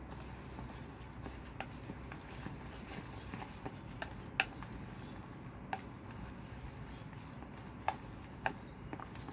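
A utensil stirring a thick batter of grated sweet potato, flour and egg in a mixing bowl, with irregular sharp clicks as it knocks against the bowl's side, the loudest about four seconds in and twice near the end.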